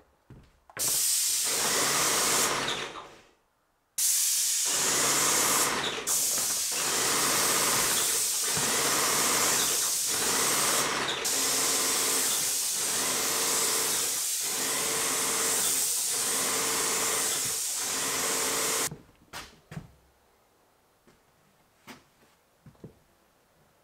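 Airless paint sprayer gun hissing as it atomises paint onto a wall, with a regular pulse about every second and a quarter. The spray breaks off briefly after about three seconds and stops about nineteen seconds in.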